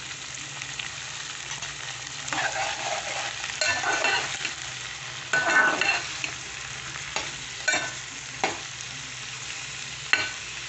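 Long-cut brinjal (eggplant) pieces sizzling in hot oil in a metal pan while a spoon stirs and scrapes them, with several louder scraping strokes from about two to six seconds in. Later come a few sharp taps of the spoon against the pan.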